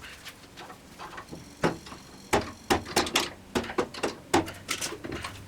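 Irregular clinks and knocks of hand work on the Unisaw's metal parts during disassembly, about eight sharp strikes spread unevenly through the middle and end.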